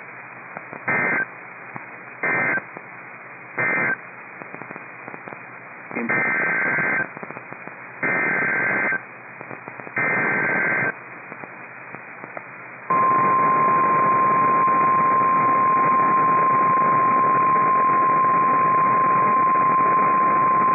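NOAA Weather Radio emergency alert data and alarm, over radio hiss. First come three short, harsh two-tone SAME data bursts, then three longer ones. Roughly two-thirds of the way in, the steady 1050 Hz warning alarm tone starts and holds, announcing a new tornado warning.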